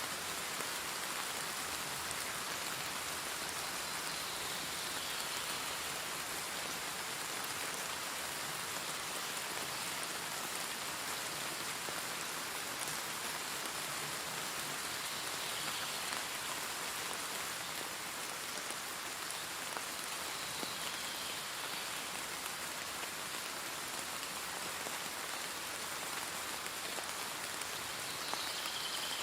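Steady rain falling: an even, continuous hiss of many drops landing on a surface.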